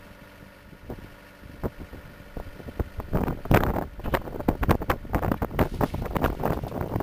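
Engine of a hybrid sonic/rotary drilling rig running steadily. From about three seconds in it is joined by a loud, irregular, crackling rush.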